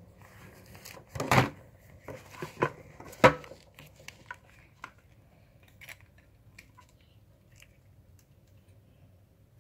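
Handling noise: knocks and rubbing as the camera and plastic dolls are moved about, with louder knocks around one and three seconds in, then a few light clicks.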